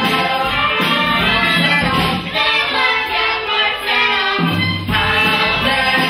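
Live musical-theatre song: an ensemble singing over band accompaniment.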